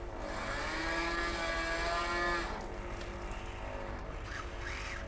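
Syntelmann telemanipulator robot arm's drives whining as the arm swings round, a steady pitched whine that stops about halfway through.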